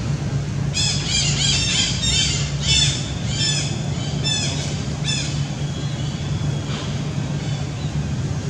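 An animal giving a quick run of short, high, rising-and-falling calls, about three a second, that stops about five seconds in. A steady low hum runs underneath.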